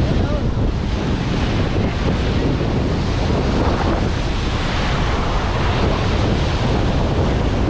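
Steady wind rumbling on the microphone over the wash of sea waves on a beach.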